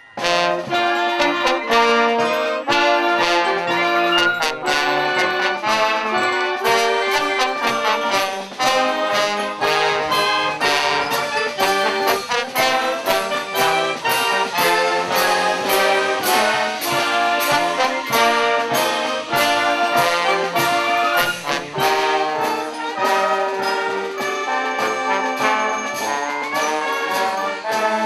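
Brass band music: trombones and trumpets playing a lively tune over a steady beat.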